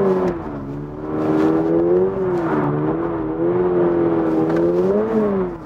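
Toyota GR86's 2.4-litre flat-four engine running at high revs under throttle, its pitch rising and falling as the car is held sliding in a drift, heard from inside the cabin. The note climbs about two seconds in and again near the end, then drops away.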